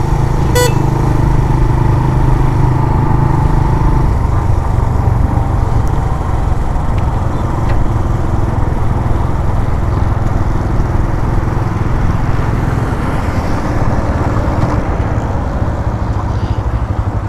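Suzuki GS 150 SE's single-cylinder engine running under way, mixed with wind rushing over the helmet-mounted camera. A short horn toot sounds about half a second in, and the engine note drops a little about four seconds in.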